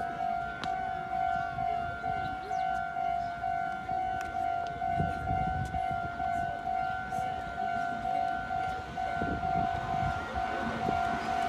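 Japanese level crossing warning bell ringing: an electronic two-tone ding repeating evenly about three times a second, signalling that a train is approaching the crossing.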